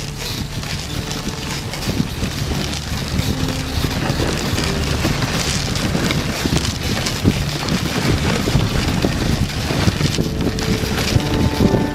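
Wind rumbling on the microphone of a moving dog sled, with the sled's runners hissing and crackling over packed snow.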